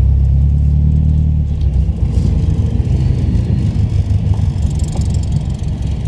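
Motor vehicle running with a low rumble: a steady low hum for about the first second and a half, then a rougher, uneven rumble.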